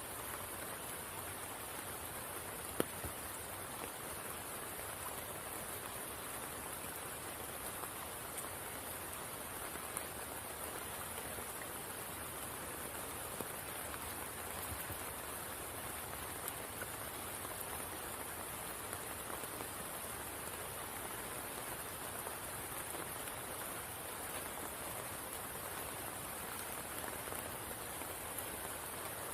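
Steady rain falling on the water of a spring pool: an even hiss of drops, with a few sharper individual drop ticks, the most distinct about three seconds in.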